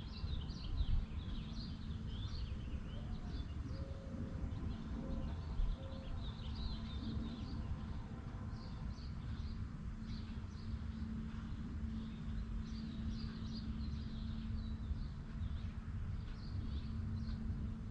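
Small birds chirping on and off over a steady low outdoor background rumble, with a faint steady hum underneath.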